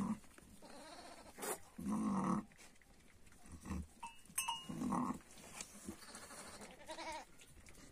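A ewe making a few short, low calls to her newborn lamb, the soft call a mother sheep gives just after lambing as she licks and bonds with it. A neck bell clinks faintly now and then.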